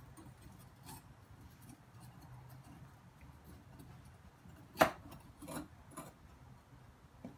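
A metal skimming tool clinks and scrapes against a crucible of molten aluminum while dross is skimmed off. There is one sharp knock about five seconds in and two fainter ones soon after, over a low steady hum.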